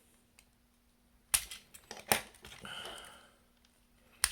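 Hard plastic parts of a transforming robot toy clicking and knocking as they are handled: three sharp clicks, with a short scraping rasp between the second and the third.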